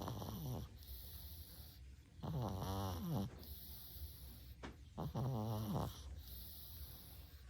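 Domestic cat snoring hard in its sleep: hearty, pitched snores that bend in pitch, about a second long and roughly every two and a half seconds, with a breathy hiss between them. Two full snores, at about two and about five seconds in, follow the tail of an earlier one.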